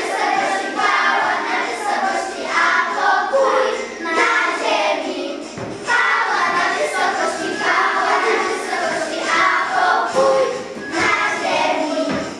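A small group of young children singing a Christmas carol together in unison, in phrases with a short break about halfway through.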